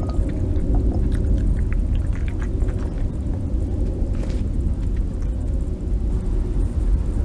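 Steady low rumble with a constant hum running through it, and faint scattered clicks on top.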